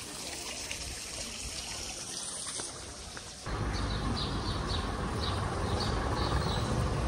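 Small fountain's water splashing and trickling into its stone basin. About three and a half seconds in it cuts to a louder, fuller outdoor background with a run of faint high chirps.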